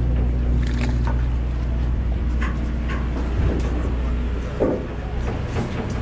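Fishing boat's engine running with a steady low hum under wind and sea noise, with a few scattered clicks and knocks.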